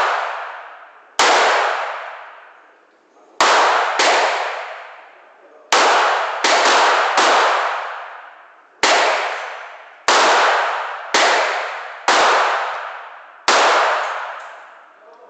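Glock 17 9mm pistol fired eleven times at an uneven pace, the shots about half a second to a second and a half apart. Each sharp report rings on in a long echo that dies away over a second or more in the enclosed indoor range.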